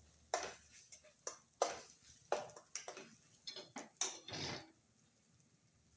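Metal spatula knocking and scraping against a stainless steel kadhai while stirring a thick masala paste, irregular clinks about every half second. They stop about four and a half seconds in.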